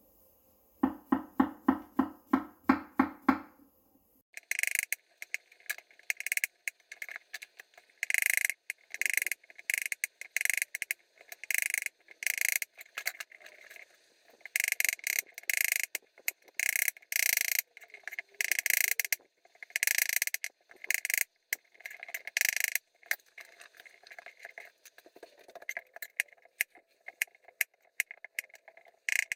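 A knife chopping on a cutting board in bursts of quick strokes, cutting up mushrooms. It is preceded, about a second in, by a short run of about ten louder low-pitched pulses.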